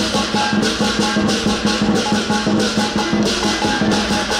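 Lion dance percussion, with drum, cymbals and gong playing a steady, driving beat of repeated strokes.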